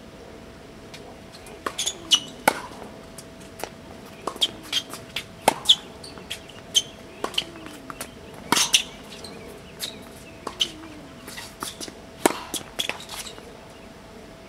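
A tennis rally: sharp pops of rackets striking the ball and the ball bouncing on the hard court, irregular and a second or so apart, stopping near the end. A faint steady hum runs underneath.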